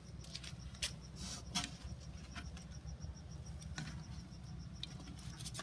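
A cricket chirping steadily, a regular run of short high pulses several times a second, with scattered light clicks and rustles from a gloved hand rummaging through bark chips in a glass tank.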